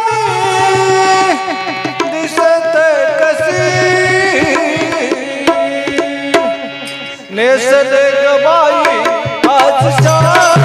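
A man singing a Marathi gavlan, a devotional folk song, into a microphone, his voice wavering and gliding between notes, with drum accompaniment.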